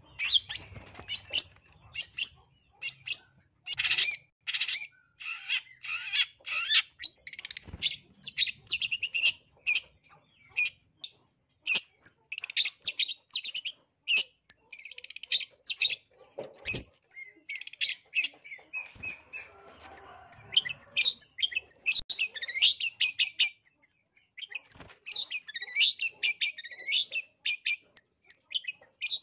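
Long-tailed shrike (cendet) singing a fast, near-continuous run of chattering notes mixed with harsher squawk-like calls, pausing only briefly now and then.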